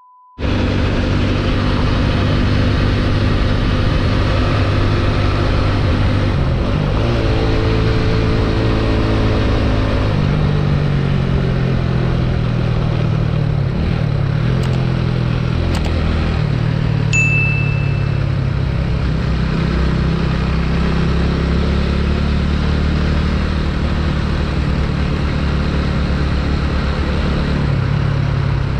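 Single-cylinder engine of a TVS Apache 200 motorcycle running under way, its pitch stepping up and down with throttle and gear changes. A short high beep sounds about two thirds of the way in.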